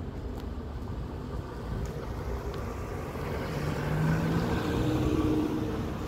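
Road traffic: a motor vehicle's engine running as it comes by, growing louder after the middle and at its loudest a little before the end, over a steady rumble of the street.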